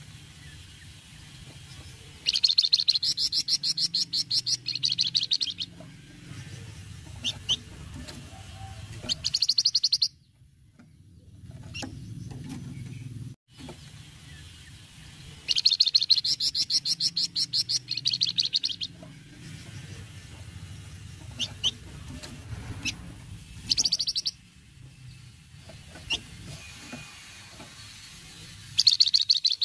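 Flamboyan songbird giving fast chattering rattles, the 'cretetan' call, in repeated runs of one to three seconds with single short notes between them.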